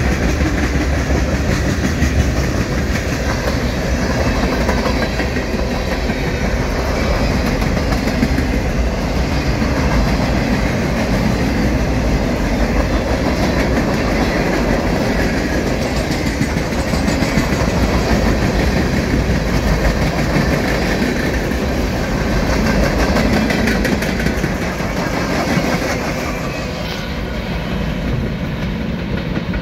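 Freight train cars rolling past: a steady rumble and clatter of steel wheels on the rails from covered hoppers, boxcars and tank cars. The sound eases off near the end as the last car goes by.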